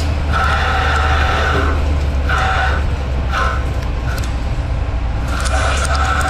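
Mori Seiki ZL-25 CNC lathe cutting a spinning steel-looking hub: a steady low spindle hum, with a higher cutting tone from the tool on the metal that comes and goes in stretches of a second or so and returns strongly near the end.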